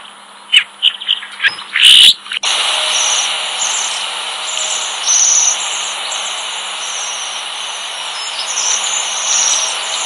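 Recorded bird calls from a bird-sounds app. There are scattered short chirps and a louder burst about two seconds in. Then, from about two and a half seconds in, a recording starts suddenly: a steady hiss of background noise with repeated short, high-pitched calls.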